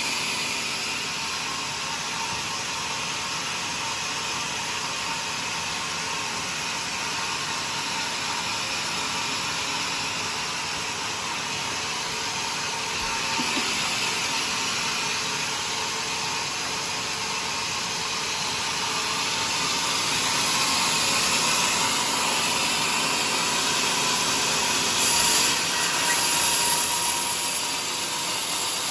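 Homemade sawmill's saw running and cutting through a joar (Cassia siamea) log: a steady hiss of cutting over a constant machine hum, a little louder in the last third.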